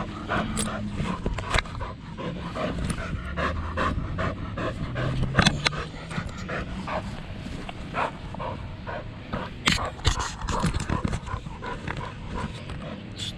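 A pit bull panting in quick, repeated breaths.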